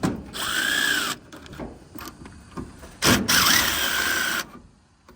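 Aerosol spray paint can spraying in two bursts of about a second each, a steady hiss with a thin whistle that rises and falls in each burst.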